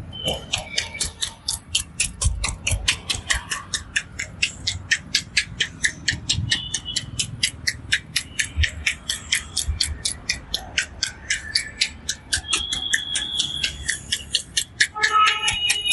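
Rapid, even tapping of a percussive head massage: the barber's hands striking the head about five or six times a second in a steady rhythm.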